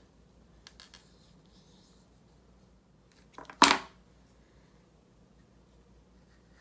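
Quiet handling noises as tulip stems are pushed into floral foam in a ceramic teapot: a few faint clicks, then one brief sharp knock about three and a half seconds in.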